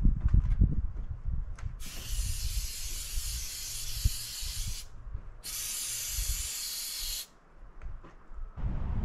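Two hissing bursts of pressurized spray, the first about three seconds long and the second about two, with a short break between, over a low rumble.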